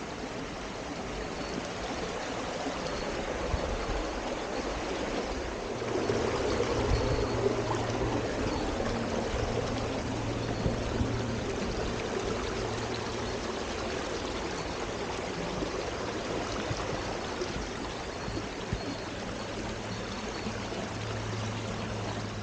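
Mountain stream running steadily, an even rush of water.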